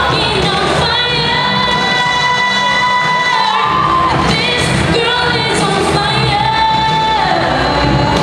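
A girl singing a song solo into a microphone over musical accompaniment, holding two long notes, one about a second in and another near the end.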